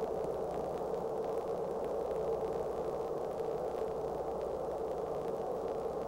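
Tugboat engine running with a steady, unchanging drone and hiss, a constant hum under it.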